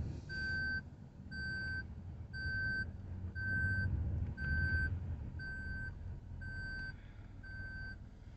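A car's electronic warning chime beeping steadily about once a second, each beep about half a second long and all at the same pitch, over a low engine hum.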